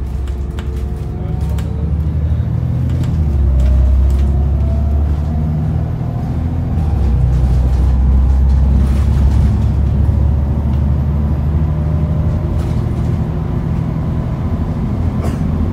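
Alexander ALX400 double-decker bus's diesel engine running loudly under way, heard from inside the saloon, with a whine rising in pitch over the first few seconds as it pulls away. Short rattles and clicks from the body and fittings come and go throughout.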